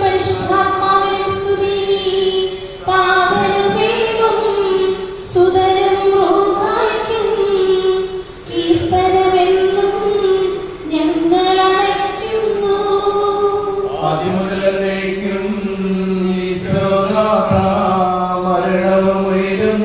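Liturgical funeral chant sung by a priest from a book, amplified through the altar microphone, in long held phrases. A steady low tone sounds beneath the voice at the start and again in the last few seconds.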